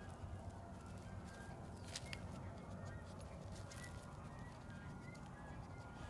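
A Borador puppy noses and paws at a concrete gutter drain outlet, giving faint scattered clicks and scratches over a steady low hum. A few short, faint high chirps come through now and then.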